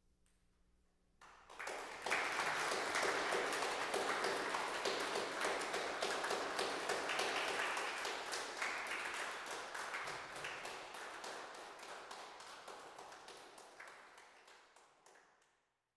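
Audience applauding, starting about a second in after the organ has fallen silent, then slowly thinning out and fading away near the end.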